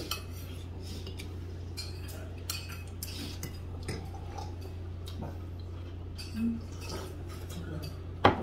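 Cutlery and dishes clinking now and then at a meal table, with one sharper clink near the end, over a steady low hum.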